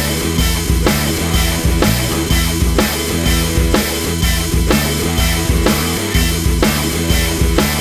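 Background rock music with a driving drum beat, about two hits a second, over bass and guitar.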